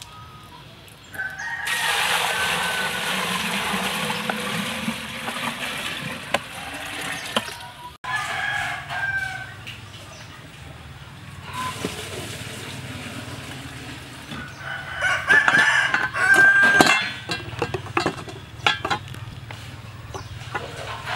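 A rooster crowing three times, about a second in, about eight seconds in and about fifteen seconds in, with some clucking around it. Sharp clicks near the end from the snail shells knocking against the steel bowl.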